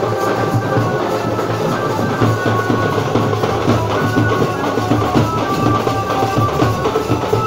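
Street procession drum band: large double-headed drums beaten with sticks in a fast, busy rhythm, with a melody of held notes over it.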